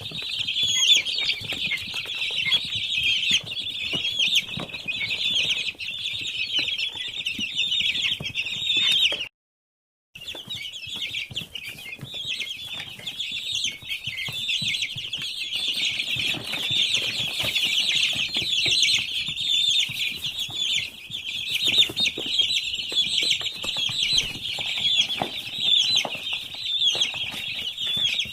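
A large flock of week-old poultry chicks peeping continuously, many high chirps overlapping into a dense chorus. The sound cuts out completely for about a second roughly a third of the way through.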